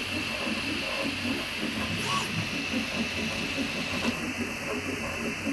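Prusa i3 MK3S+ 3D printer printing small parts: its stepper motors whirring in quick, shifting tones over the steady hiss of its cooling fans.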